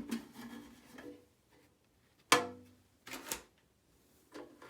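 Plastic parts of an ultrasonic humidifier's water tank being handled: one sharp knock about halfway through that rings briefly, then two lighter clacks.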